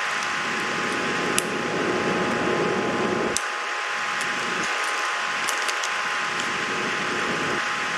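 Plastic keycaps being pushed onto the mechanical keyboard's switches: a few sharp clicks, one a little over a second in, another after about three seconds, and a small cluster later on. Under them runs a steady fan-like hum.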